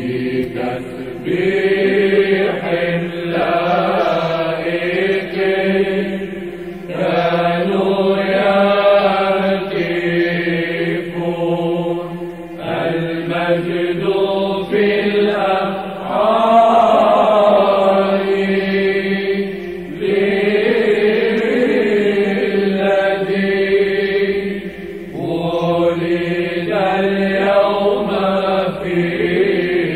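Byzantine Orthodox liturgical chant sung by a group of chanters: a melismatic melody over a steady held low drone, in long phrases broken by short breaths about every five to seven seconds.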